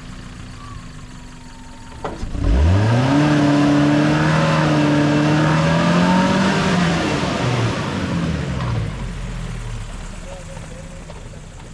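Maruti Gypsy 4x4's engine revving hard as the vehicle drives off on loose dirt. After a click about two seconds in, the revs climb quickly, hold high for about four seconds, then fall away.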